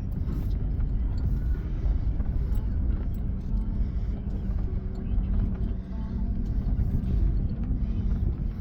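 Toyota Land Cruiser Prado 4x4 driving slowly over a rough dirt track, heard from inside the cabin: a steady low engine and road rumble with scattered small knocks and rattles.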